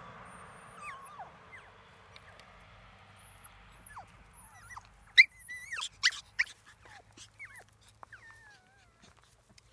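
Puppies whimpering: short, thin whines that fall in pitch, then a cluster of loud, high yelps about five to six and a half seconds in.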